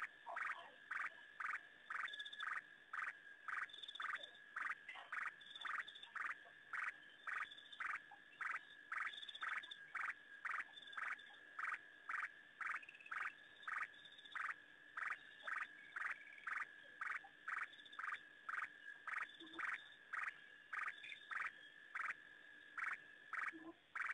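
A chorus of frogs calling: short calls repeat evenly, about two a second, over a steady high tone.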